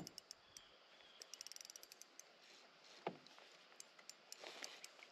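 Faint, rapid clicking from a spinning reel while a hooked fish is played and reeled in, the clicks coming in quick runs. Two duller knocks, one at the start and one about three seconds in.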